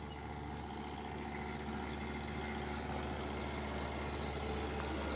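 Hitachi window air conditioner running with a steady low hum from its compressor, with the fan's even whoosh over it; the unit has just been recharged with refrigerant gas.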